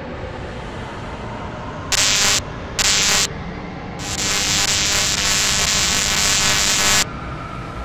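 Loud hissing noise in two short blasts about a second apart, then one long blast of about three seconds that cuts off suddenly, over a steady background hum.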